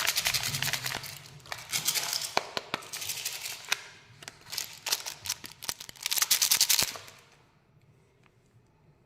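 Plastic packaging from a Kinder Joy unboxing crinkling and crackling as it is handled, in dense rapid bursts that stop about seven seconds in.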